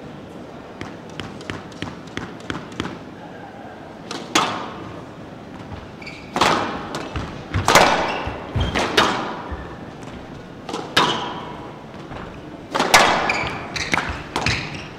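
Squash rally on a glass court: a few light taps, then loud, echoing smacks of racket on ball and ball off the walls, coming in quick clusters. Brief squeaks of court shoes on the wooden floor are heard between the shots.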